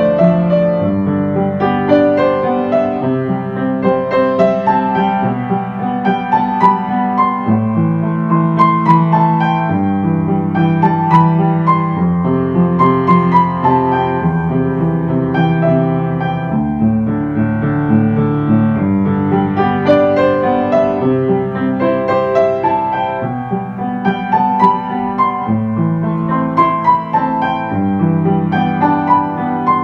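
Calm ambient piano music: held chords that change every few seconds under a gentle melody.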